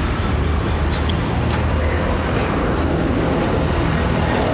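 Road traffic: a steady low rumble of passing vehicle engines, with a few faint clicks.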